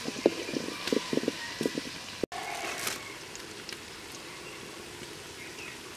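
Sliced onions sizzling in hot oil in an aluminium pot, stirred with a wooden spatula: a string of short scrapes and knocks in the first two seconds, then a steadier sizzle.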